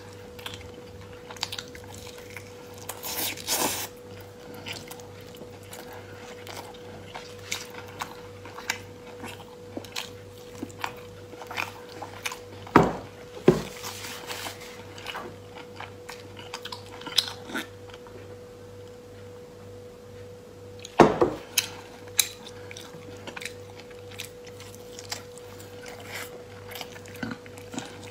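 Close-up mouth sounds of someone chewing and biting braised pork belly: many small wet clicks. A few louder knocks come near the middle and about three-quarters through, over a faint steady hum.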